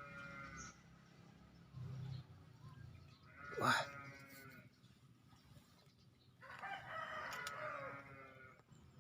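Roosters crowing, faintly: three drawn-out crows, one at the start, one about three and a half seconds in, and a longer one about six and a half seconds in.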